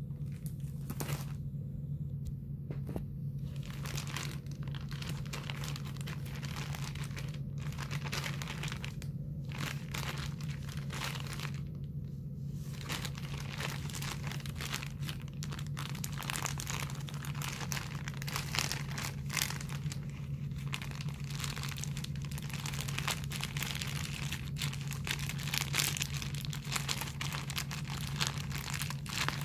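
Thin clear plastic bag crinkling and rustling as it is handled, in irregular bursts with a few brief lulls; a steady low hum runs underneath.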